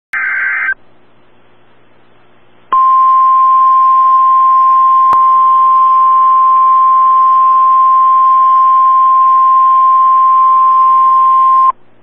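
The tail of a SAME digital header burst, a short screechy data squeal, then after about two seconds the NOAA Weather Radio warning alarm tone: one steady 1050 Hz tone held for about nine seconds and cut off sharply. The tone signals that a warning broadcast follows, here a severe thunderstorm warning.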